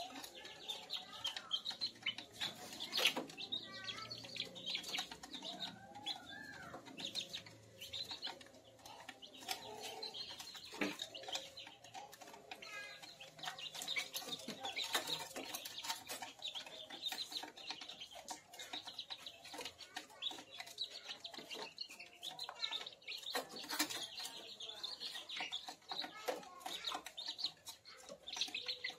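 A brood of month-old kampung chicks (Indonesian free-range chickens) cheeping, with many sharp taps of beaks pecking at the feed tray and now and then a flutter of wings.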